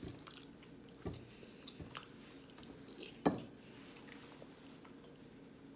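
A person chewing and biting into soft vegan jackfruit nuggets, with scattered small wet mouth clicks and a sharper smack a little past the middle.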